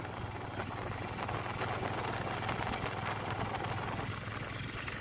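Running noise of a small open vehicle driving along a road: a steady low hum under an even rushing noise.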